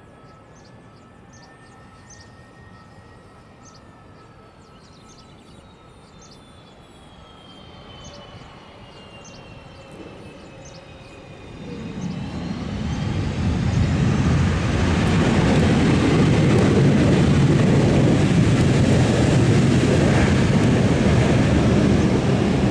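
Airbus A318 jet coming in to land. At first there is a faint engine whine falling slowly in pitch. About twelve seconds in, a loud rushing jet roar builds quickly and holds as the aircraft passes close by.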